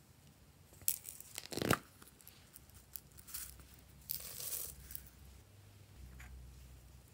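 Plastic cap being worked off a small plastic jar of gold sequins, with a cluster of sharp plastic clicks and crackles about a second in, then a short rustle about four seconds in as the sequins are poured out of the jar.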